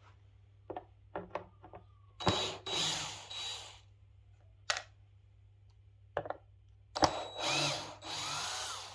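A power drill-driver running in two bursts of about a second and a half and two seconds, its motor pitch rising and falling, with a few clicks between. It is taking out screws to free the woofer from the subwoofer cabinet.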